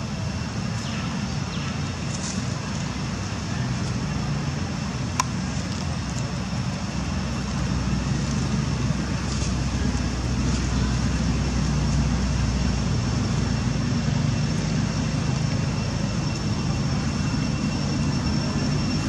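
Steady low rumble of outdoor background noise that grows a little louder about seven seconds in, with a faint steady high tone above it and one sharp click about five seconds in.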